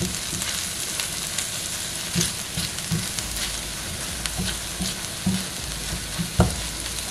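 Scrambled eggs sizzling in a cast iron skillet, a steady hiss, while a silicone spatula stirs and scrapes them with small ticks against the pan. One sharper knock about six seconds in.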